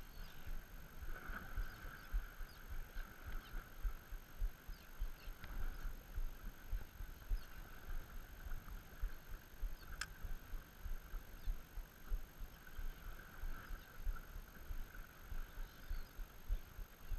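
Wind buffeting the microphone and choppy water lapping against a small boat's hull, an uneven rumble with constant small surges. One sharp click about ten seconds in.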